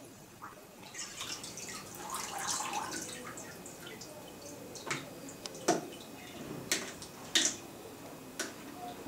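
Water sloshing and splashing in a plastic storage box as a handheld OTDR is moved about under water and lifted out. Sharp drips and splashes fall from about five seconds in.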